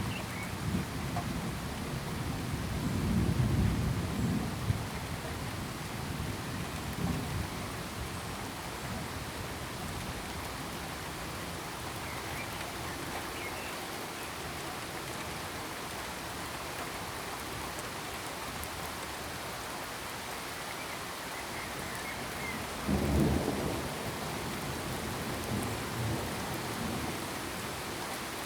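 Steady rain with rolling thunder: a long low rumble over the first few seconds and a shorter, sharper one about 23 seconds in.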